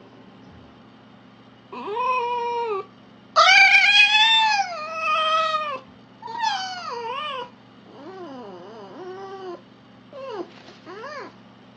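Red fox giving a series of five or six drawn-out, wavering calls that rise and fall in pitch, the second the longest and loudest.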